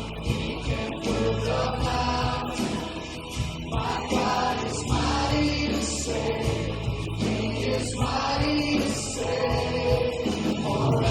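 Congregational worship music: a choir or group of voices singing over a band with steady bass notes and a regular drum beat.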